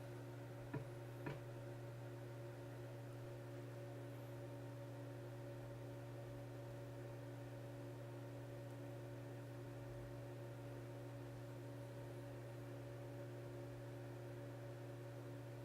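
Steady low electrical hum with a few faint steady tones above it, and two short clicks about a second in.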